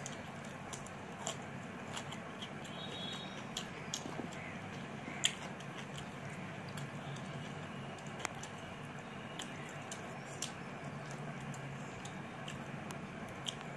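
Eating sounds of a person eating rice and mutton by hand: irregular soft clicks and smacks from chewing and from fingers working rice on the plate, the sharpest click about five seconds in, over a steady low hum.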